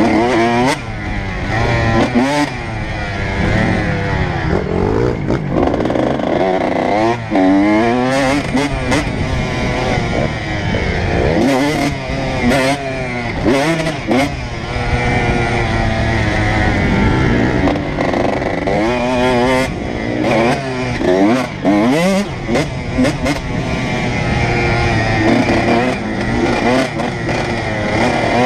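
Honda CR125's two-stroke single-cylinder engine revving hard through the gears on a motocross track, its pitch climbing and dropping again and again as the rider shifts and rolls off, with sharp knocks now and then.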